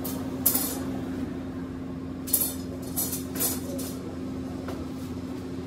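Several short clinks and clatters of objects being handled and set down: one about half a second in, then three close together past the middle. A steady low hum runs underneath.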